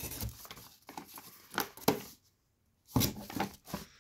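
Thin plastic packaging rustling and cardboard being handled as a hand rummages inside a box, in short irregular bursts with a brief pause about halfway through.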